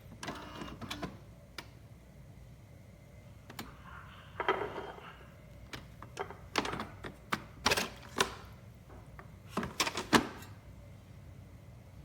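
Irregular sharp clicks and knocks of hard objects being handled, with a brief scrape about four and a half seconds in and the loudest knocks near eight and ten seconds in.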